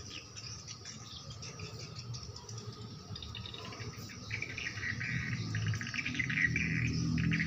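Background chirping, dense and pulsing, growing louder from about halfway through, over a low rumble that also builds toward the end.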